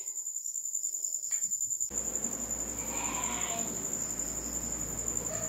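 Crickets trilling steadily in a high, finely pulsing tone. About two seconds in, a soft background hiss rises underneath.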